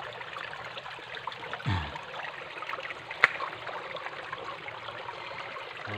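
Small forest stream running over rocks, a steady rushing trickle. A single sharp click about three seconds in.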